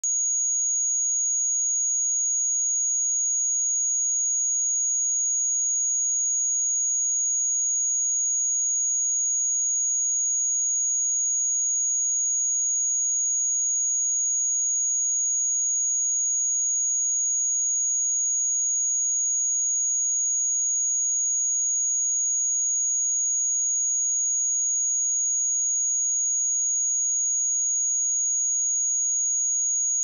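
A pure 6686 Hz sine-wave test tone, a single steady high-pitched whistle held at constant level, used to check speakers or headphones.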